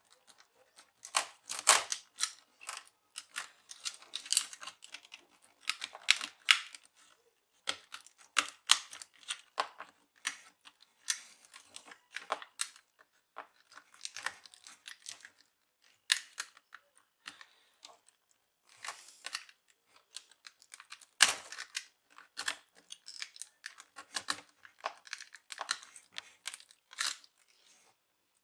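Irregular sharp clicks, small cracks and scraping of plastic as a laptop display panel is pried out of a display casing held by epoxy adhesive.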